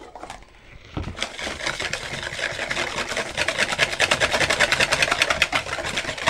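Wire balloon whisk beating a runny egg, sugar, cream and sour-cream batter in a plastic bowl: fast, even clicking and tapping of the wires against the bowl, about eight strokes a second. It starts about a second in and gets louder.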